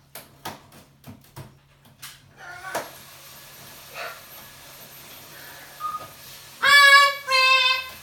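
Amazon parrot vocalising: a few soft clicks, then short calls, and near the end two loud, drawn-out calls, one right after the other.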